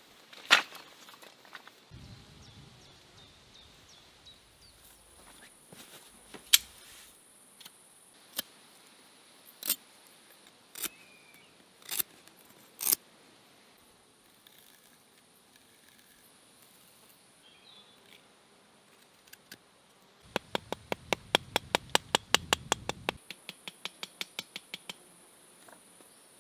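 Sharp clicks or taps, a handful spaced a second or two apart, then a quick even run of about thirty taps, roughly seven a second, that stops a second before the end, over a faint steady high hiss.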